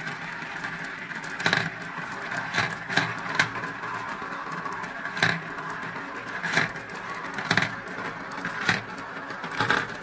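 Marbles rolling round the clear plastic funnels of a marble run, a steady rolling rumble with sharp clicks every second or so as they knock together or drop into the centre tube.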